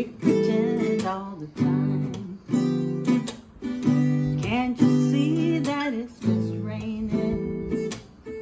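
Cutaway acoustic guitar strummed in a steady rhythm, each chord struck loudly and left to ring before the next, with the chord changing about once a second.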